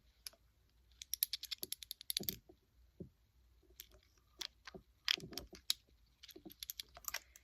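Light plastic clicking and tapping from small makeup containers being handled, with a quick run of rapid clicks about a second in, then scattered single taps.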